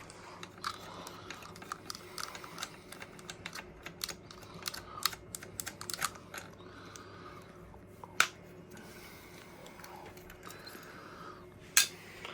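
Light, irregular clicks and taps of a spanner on a nut and small metal parts being handled while an indicator's mounting nut is done up. There are sharper single clicks about eight seconds in and near the end.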